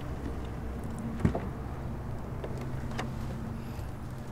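A car's low steady hum, with a sharp click about a second in and a fainter click around three seconds.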